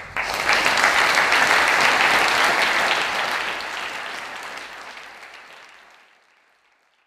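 Audience applauding at the end of a talk, starting at once, strongest in the first few seconds and then dying away to silence.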